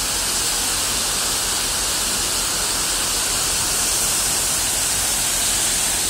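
Waterfall: water pouring down a rock cliff, a steady hiss of falling water.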